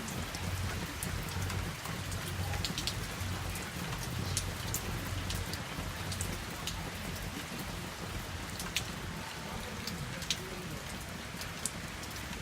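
Steady rain falling, with scattered sharp ticks of single drops hitting a hard surface close by. A low rumble lies under it in the first half.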